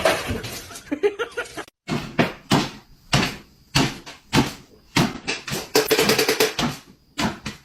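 Repeated knocks, about three a second, with a brief silence just before two seconds in.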